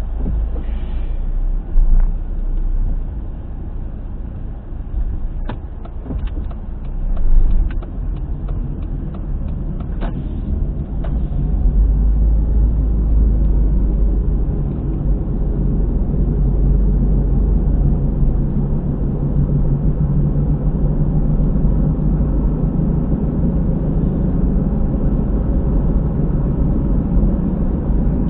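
Honda car on the move, heard from inside on a dashcam: steady tyre and road rumble, a little louder from about twelve seconds in, with a scatter of sharp clicks in the first half. The car carries an abnormal noise from near a rear tyre, which the owner takes for a failing hub bearing.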